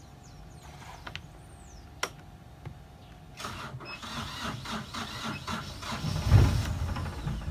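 Yanmar marine diesel engine cranking on its starter for about four seconds, growing heavier and loudest near the end as it begins to fire, just after air was bled from the fuel system. Before the cranking there is a faint steady tone and a single click.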